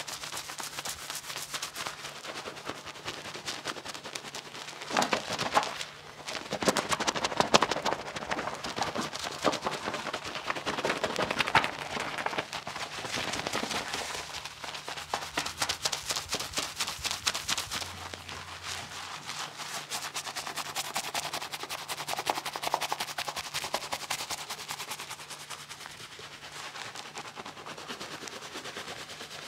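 Fingers scrubbing a scalp through a thick head of shampoo foam, the lather squishing and popping in a dense run of tiny crackles that swells and eases as the hands work.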